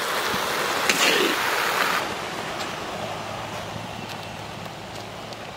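Prawns and onion leaves sizzling in a large wok while a metal spatula stirs and scrapes them. The frying is louder for about two seconds, with a few sharp scrapes, then drops suddenly to a softer hiss.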